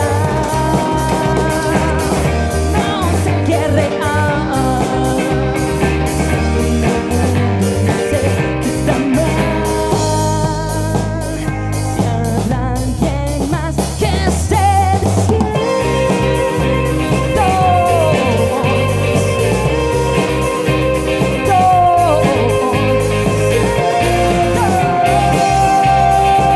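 A live rock band playing: drum kit, electric guitars and keyboards, growing louder and fuller in the last few seconds.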